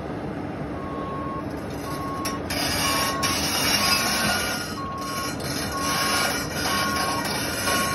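Cat mini excavator's diesel engine and hydraulics running, with its alarm beeping about once a second, as a travel alarm does while the machine moves on its tracks.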